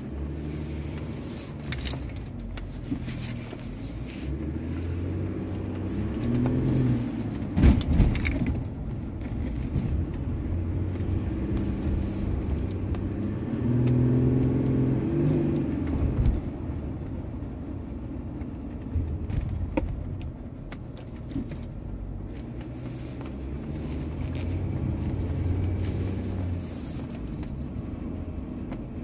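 Volkswagen Phaeton heard from inside the cabin: a low engine and road hum whose pitch rises and falls. A couple of sharp knocks come about eight seconds in.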